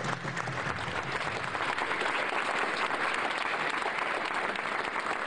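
A crowd applauding, dense steady clapping, with music underneath fading out about a second in.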